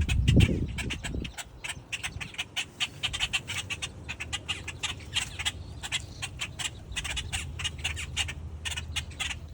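Many short, sharp squawking and clucking calls overlapping from a crowd of common gallinules (moorhens) jostling for food, with a brief low thump right at the start.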